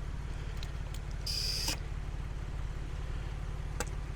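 Short hiss of air, about half a second long, a little over a second in, as an inflation hose coupling is pushed onto a tire valve stem. A light click comes near the end, all over a steady low pulsing hum.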